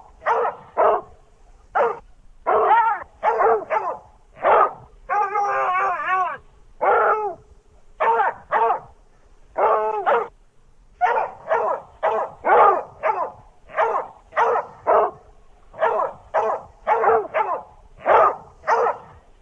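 Hound dog barks and yips from a cartoon soundtrack: a rapid string of short barks, with a longer baying call whose pitch bends about five seconds in.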